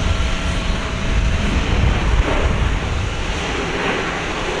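Jet aircraft noise on an airport apron: a steady low rumble with a faint whine, the rumble easing about two seconds in and leaving a broad, even hiss.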